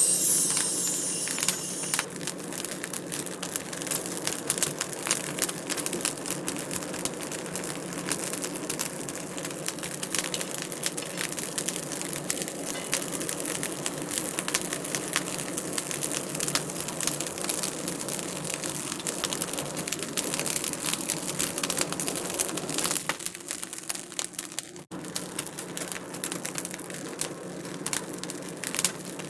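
Wood fire crackling in a fireplace: a dense, irregular patter of small pops and snaps over a steady low hum. It goes briefly softer a little after twenty seconds in, with a sudden break near twenty-five seconds.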